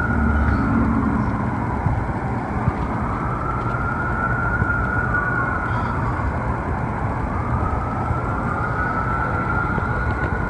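Emergency vehicle siren wailing, its pitch slowly rising and falling about every five seconds, over a steady low rumble.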